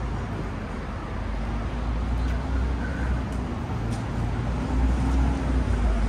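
City street ambience: a steady low rumble of road traffic that swells slightly in the second half.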